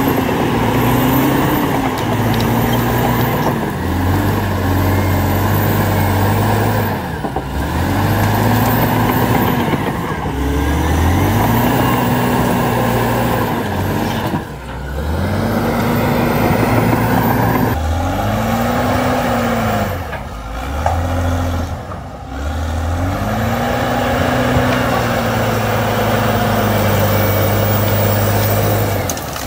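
Caterpillar D7R crawler dozer's diesel engine working under load as the blade pushes brush and earth. Its pitch rises and sags in repeated swells every few seconds as the load comes on and eases off.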